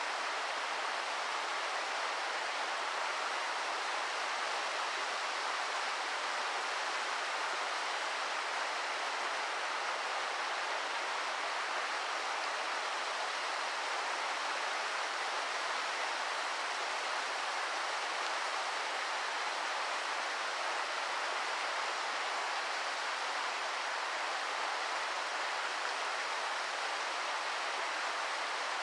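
Waterfall pouring steadily, an even rushing hiss of falling water with little deep rumble.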